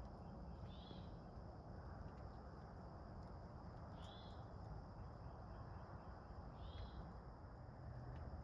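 Quiet woodland ambience with a low steady rumble. A bird gives a short, high chirp three times, about every three seconds.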